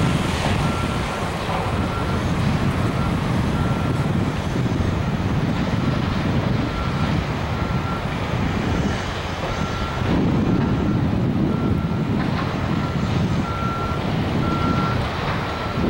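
Union Pacific double-stack freight train rumbling steadily as it moves away. A short high beep repeats about once a second through it.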